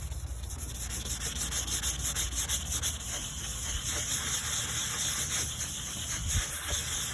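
Sandpaper wet-sanding a plastic headlight lens by hand in steady back-and-forth strokes, a continuous rhythmic rasp, as the oxidised, foggy surface layer is sanded off with spray lubricant on the lens.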